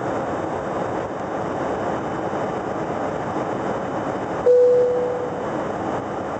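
Steady noise of jet engines and rushing air inside an airliner cabin during the climb after takeoff. About four and a half seconds in, a single cabin chime sounds and fades away over about a second.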